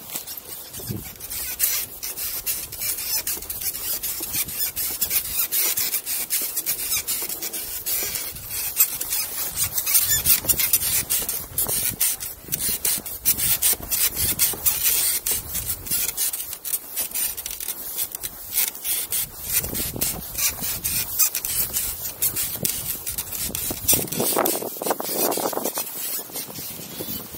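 Something rubbing and scraping right against the camera microphone: a continuous, irregular scratchy crackling.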